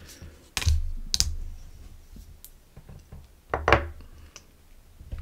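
A few irregular light clicks and knocks with dull low thuds, four or five in all, the strongest a little over half a second in and again near four seconds.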